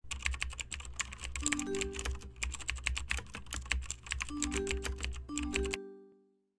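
Typing sound effect: keys clicking rapidly and unevenly as text is typed out, over a low hum and a few short low musical notes. It all cuts off suddenly a little before the end.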